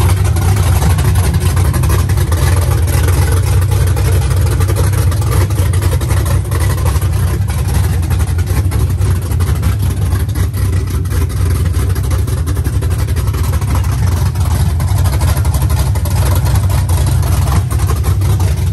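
Classic Chevrolet pickup's V8 engine idling, loud and steady, with a heavy low rumble.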